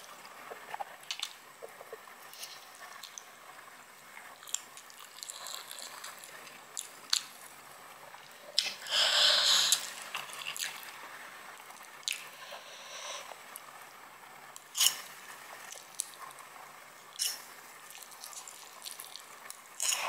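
Close-miked eating of Samyang fire noodles and boiled egg: soft wet chewing with scattered sharp clicks, and one louder burst lasting about a second halfway through.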